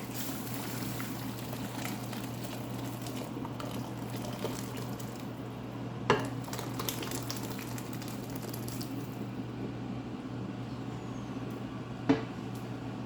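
Hot pepper rasam being poured or ladled out, a steady liquid splashing, with a sharp clink of the utensils about six seconds in and again near the end.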